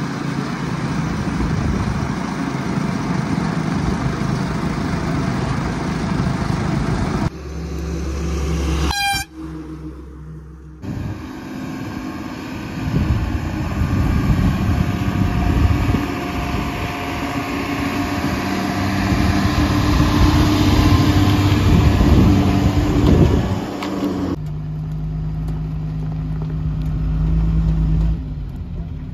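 Tata 2518 tipper truck's diesel engine running as the truck drives past and over a dirt track, with tyre and road noise. The sound changes abruptly several times where separate clips are joined.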